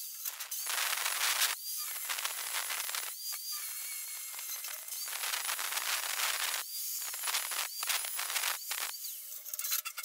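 Hand-held power tool cutting a wiring chase into a masonry wall in repeated bursts of one to two seconds, with a gritty hiss and a brief high whine as several bursts start.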